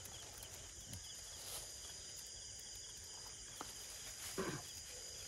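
Steady outdoor insect chorus of crickets chirping, with a short knock a little over four seconds in.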